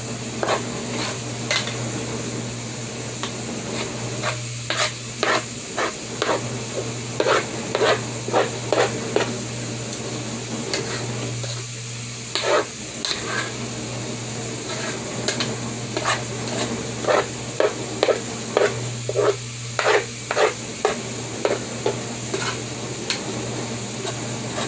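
A utensil scraping and stirring thick batter in a bowl in quick, irregular strokes, with a short lull about halfway through, over a steady low hum.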